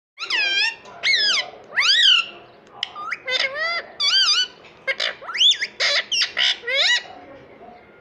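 Indian ringneck parakeet giving a rapid string of about a dozen loud squawks and chattering calls, each sliding up and down in pitch, ending about seven seconds in.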